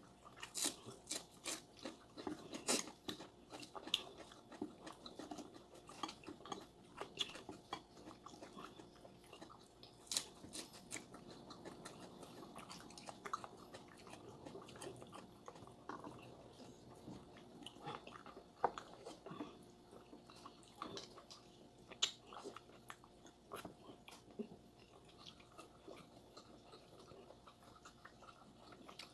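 Close-up chewing and crunching of a meal of fried tempeh and raw greens, with irregular sharp clicks of chopsticks against bowls and plates.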